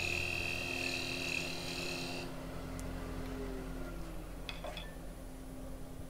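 Wood lathe running with a steady low hum while a thin parting tool cuts a tenon on the spinning waste block, giving a high-pitched scraping whine that stops about two seconds in. The lathe keeps humming afterwards, with a couple of light clicks.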